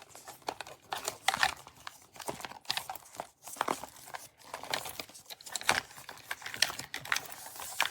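Crinkling and rustling from a small wristlet purse being handled and pushed into a Master Lock portable lock box, with irregular crackles and light knocks.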